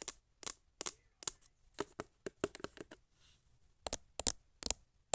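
ASMR tapping: a string of light, sharp taps, about two or three a second, pausing for about a second a little past the middle before starting again.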